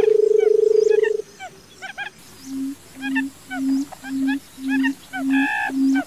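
Barred buttonquail calling: a long, low, rapid drumming purr that stops about a second in, then a series of seven short low hoots about half a second apart, growing louder. Small birds chirp faintly behind, and one higher call cuts in briefly near the end.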